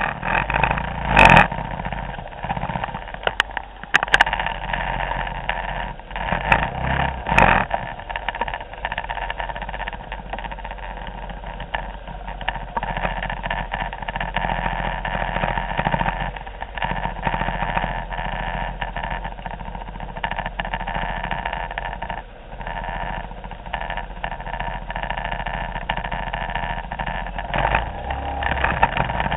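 Many Vespa scooters running together in a slow-moving queue, a steady mix of idling and low revving engines, with a few sharp knocks in the first several seconds.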